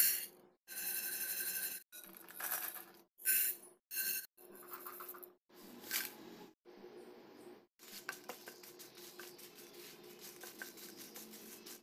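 Dry lentils, chillies and curry leaves rattling as they are poured into a pan and stirred with a wooden spatula, in short separate bursts, the loudest at the start. The last few seconds hold a run of quick small clicks and scrapes.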